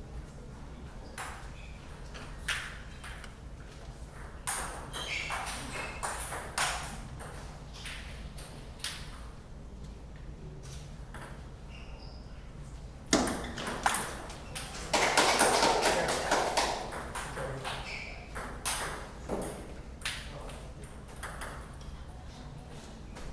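Table tennis rally: the ball clicking off the paddles and the table, in sharp knocks a fraction of a second apart. A louder stretch of noise comes about two-thirds of the way through.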